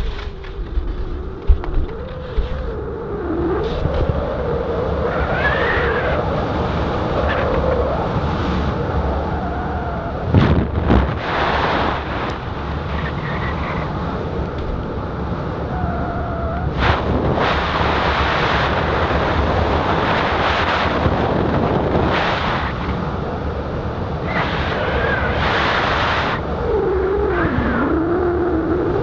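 Loud wind rush over the camera microphone during a fast speedriding descent under a small speed wing, with gusty surges and a wavering whistle now and then.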